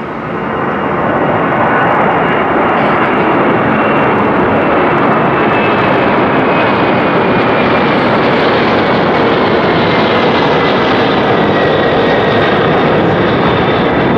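McDonnell Douglas MD-11F freighter's three jet engines at takeoff climb thrust as it passes close by: loud, steady jet noise that swells over the first second or so. A high whine runs through it and slowly falls in pitch.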